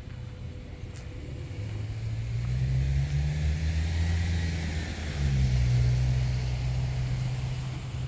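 A motor vehicle's engine on a road close by, a low drone with some road hiss. It grows louder from about two seconds in, dips briefly about five seconds in, swells again, then eases off near the end.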